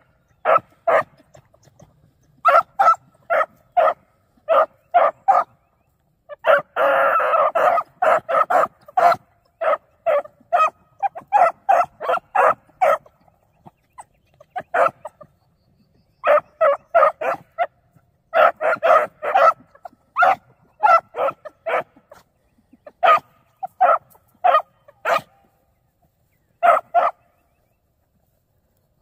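Beagle pups giving tongue on a rabbit's scent: clusters of short, high barks a few a second, with one longer drawn-out bawl a little after six seconds in and short pauses between runs of barking.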